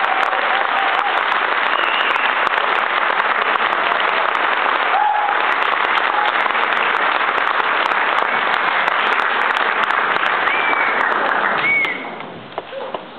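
Audience applauding loudly, with a few cheers and whistles over the clapping; the applause cuts off suddenly near the end.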